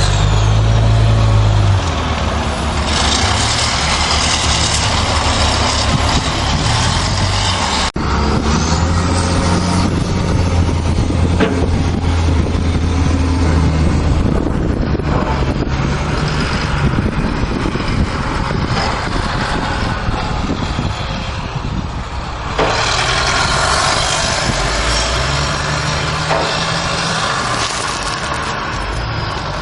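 A large motor vehicle's engine running, its note stepping up and down several times.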